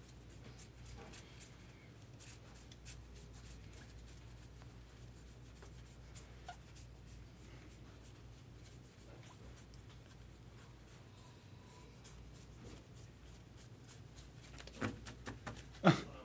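Faint flicking and sliding of paper baseball cards as a stack is thumbed through one card at a time, over a low steady hum. Near the end come a few louder knocks as the stack is squared up.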